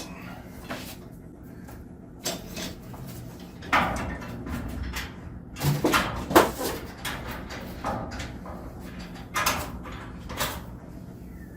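Metal sectional garage door running along its tracks, with a string of irregular clunks and rattles from the rollers and panels, the loudest knocks about four and six seconds in. The door has just been braced against bowing, and the roughness left is what the owners put down to old rollers and dirty tracks.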